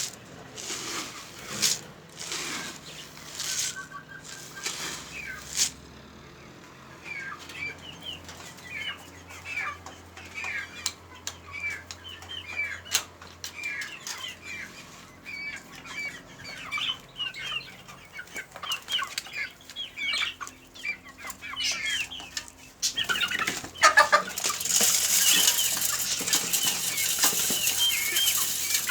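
Birds gathering to feed: short rustles and wing-flaps at first, then a run of quick high chirps, then from near the end a loud rush of many wings flapping.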